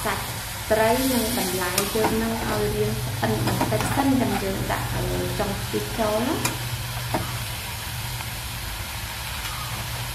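Metal ladle stirring and scraping vegetables and kroeung paste around an aluminium wok, with sizzling and sharp clinks of the ladle on the pan. This is the dry stir-fry stage of samlor korkor. Short, wavering squeaky tones come and go during the stirring and stop about seven seconds in.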